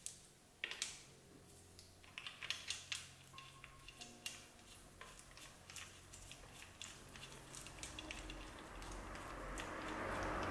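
Scattered light clicks and metallic rattles as a timing chain is handled and seated over the sprockets and plastic guides of an Audi TT Mk3's engine, with a rising rustle near the end.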